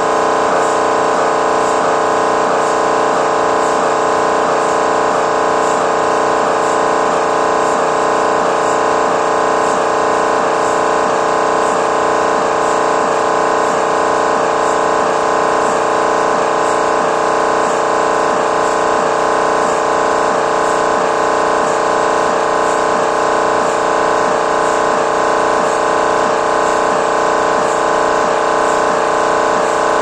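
GE MRI scanner's gradient coils sounding during a scan sequence: a loud, steady buzzing tone of several pitches with a fast, even pulsing rhythm that does not change.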